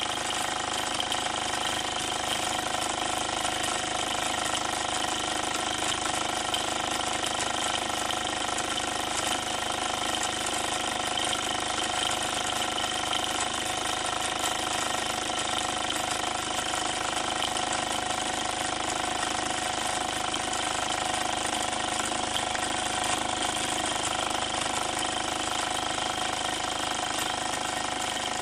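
Mamod/Hobbies prewar SE3 toy steam engine running at a steady speed, its single oscillating brass cylinder and Meccano replacement gears making a fast, even clatter with a steady whine over it. It runs smoothly, freshly restored from rust.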